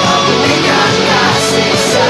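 Lead guitar playing the song's melody over a full band backing track, with held and sliding notes.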